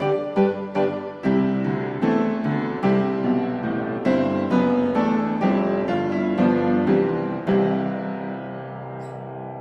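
Background piano music: quick repeated notes for about the first second, then slower chords, ending on a held chord that fades away.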